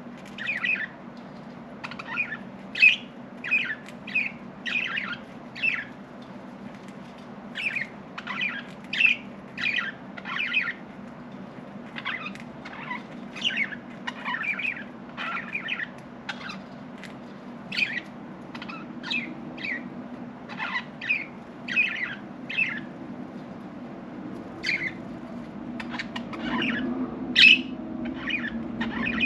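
Budgerigars chirping and squawking in a quick run of short calls, about two a second, with brief pauses, over a steady low hum.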